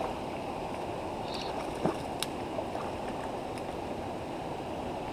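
Shallow river running over rocks: a steady rush of flowing water, with a few faint ticks.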